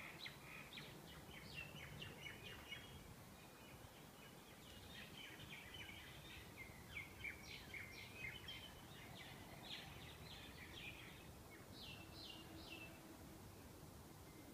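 Pre-dawn chorus of small birds: many short, faint chirps and twitters overlapping in scattered clusters, over a faint low background rumble.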